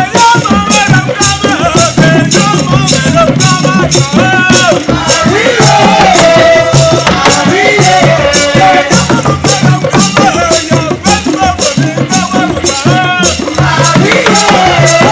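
Music with a quick, steady percussion beat under a bass line and a melody.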